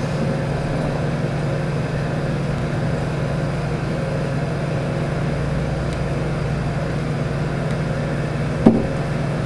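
Steady low hum of laboratory machinery on a constant pitch, with one brief knock near the end as the glass flask is handled.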